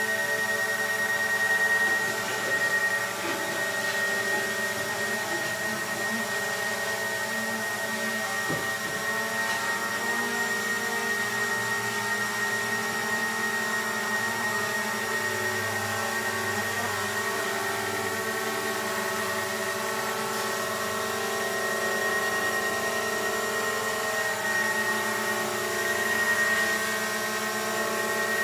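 Small quadcopter drone hovering, its propellers giving a steady high whine made of several held tones. It swells slightly a couple of times.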